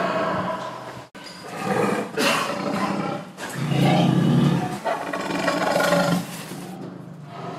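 Loud, harsh animal calls, several in a row of about a second or two each, with a brief drop-out about a second in.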